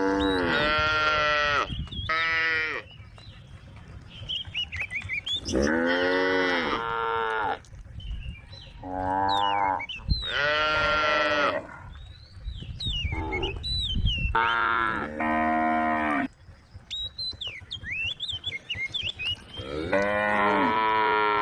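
A cow mooing over and over: about seven or eight calls, some long and some short, several rising and then falling in pitch. Short high chirps can be heard between the calls.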